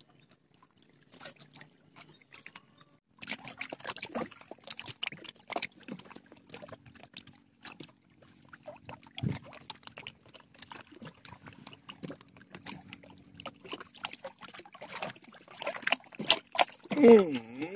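Water lapping and trickling at the bank's edge, with scattered small splashes and clicks and one heavier thump about nine seconds in.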